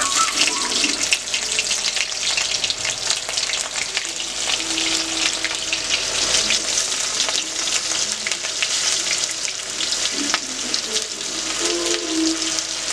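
Hot oil sizzling and crackling in an aluminium kadai as bay leaves and green chillies fry, with sliced onions tipped into the oil partway through to fry along with them.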